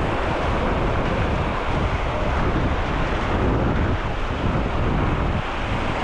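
Wind buffeting the microphone, over the steady wash of small waves breaking along the shore.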